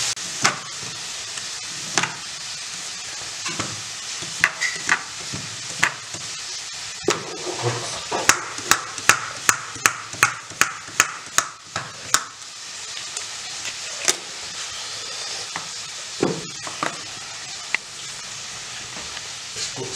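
A hand vegetable peeler scraping down a white radish (mooli) in short strokes, each ending in a sharp click, with a quick run of about ten strokes around the middle. Steady frying sizzle underneath.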